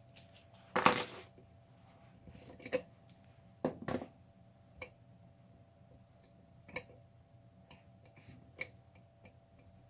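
Metal clicks and clacks from a lock-picking tool being worked in a Yale 3-star euro cylinder lock. The strokes are irregular and spaced apart, with the loudest clack about a second in.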